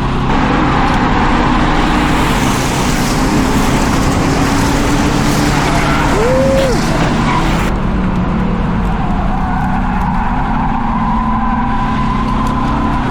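Ford Crown Victoria V8 engine running hard under racing load, heard from inside the car's cabin, with steady road and wind noise. A brief squeal rises and falls about six seconds in.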